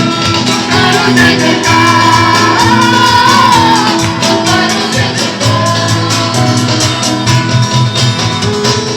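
Music with singing over a steady, busy percussion beat.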